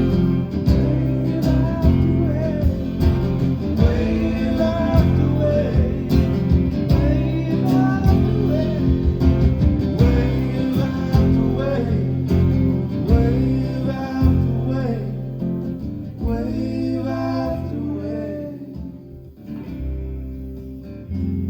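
Live band music: acoustic guitar and other instruments with singing, dying down near the end.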